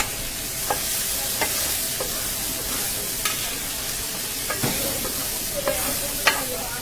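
Food frying and sizzling in hot oil in a pan, with a steady hiss, while a metal utensil clinks against the pan about seven times, the loudest near the end.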